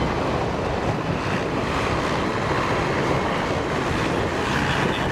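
Big diesel tractor engines running steadily under load while ploughing, heard as a continuous engine noise mixed with wind on the microphone.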